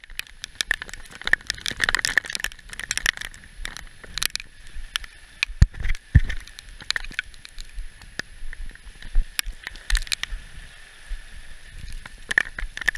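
Hurricane wind gusting against the microphone, in irregular rumbling blasts, with rain hiss and a dense crackle of short clicks.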